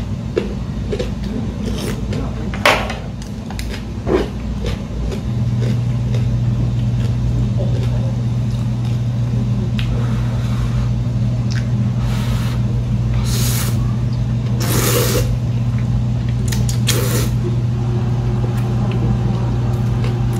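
Ramen noodles being slurped in several short, noisy sucks, the loudest between about twelve and fifteen seconds in. Under them runs a steady low hum that grows louder about five seconds in, and two sharp clinks come a few seconds in.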